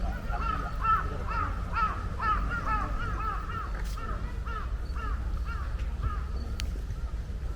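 A bird calling a rapid series of short, rising-and-falling notes, about two to three a second, that fades out about six seconds in, over a steady low outdoor rumble.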